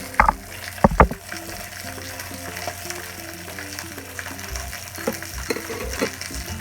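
Food sizzling as it fries in a pan and is stirred, with a few sharp knocks in the first second. Soft background music plays underneath.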